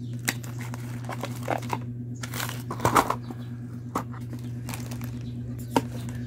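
Plastic and foil component bags being handled and crinkled: irregular crackles and rustles, the loudest about three seconds in, over a steady low hum.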